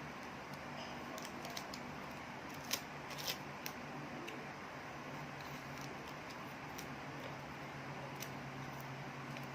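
Scissors snipping off excess paper: a handful of short, scattered snips, the loudest about three seconds in.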